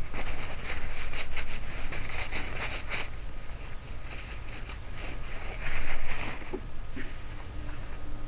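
Small clicks and rustling of a car trunk lock cylinder and its parts being handled and cleaned by hand, with a brief louder scraping noise about six seconds in.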